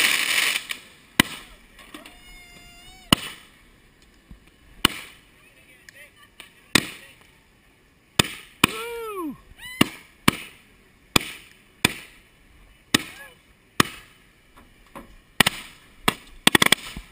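Consumer fireworks going off: a hiss of spraying sparks that stops within the first second, then a string of sharp bangs about once a second from a multi-shot cake and aerial shells, coming faster near the end.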